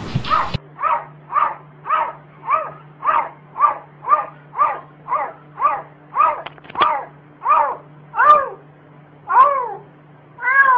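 Black cat meowing in a rapid run of short, repeated calls, about two a second, each call rising and falling in pitch. The calls grow louder, longer and further apart toward the end.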